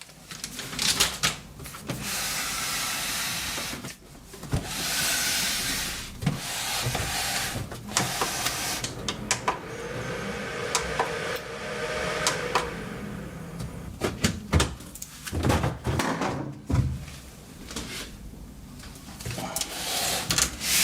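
Hands working on a desktop PC case to fit a second hard drive: a run of clicks, knocks and rustling, with several stretches of hissy rustle.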